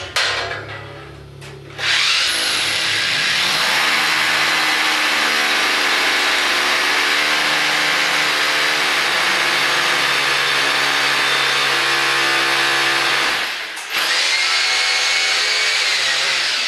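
Corded electric drill boring overhead into the ceiling: a few short knocks, then the drill runs steadily at full speed for about eleven seconds, with its motor whine. It stops for a moment and runs again for about two more seconds.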